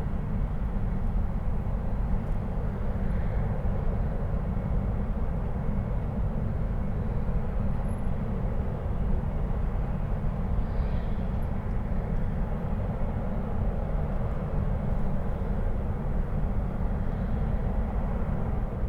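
Distant oil refinery: a steady low rumble of the plant's machinery and burn-off flares, with a fainter hiss above it.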